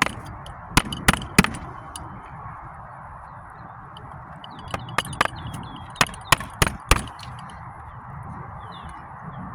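Sharp knocks as a new wood roof shake is tapped up into place under the shake above it: three knocks about a second in, then a quick run of about seven more. Faint bird chirps sound in the background.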